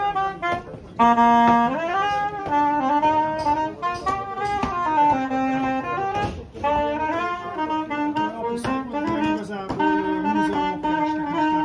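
A straight, dark reed woodwind instrument played solo, a slow melody of held notes joined by sliding bends in pitch.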